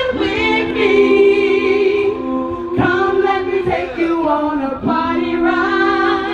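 A cappella vocal group singing through stage microphones and speakers: several voices hold sustained chords in harmony while a lead line moves above them. The held chords break off and re-enter twice.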